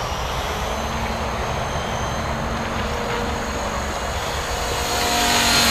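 Blade 450 3D electric RC helicopter in flight, its rotor blades and motor whirring steadily, growing louder near the end.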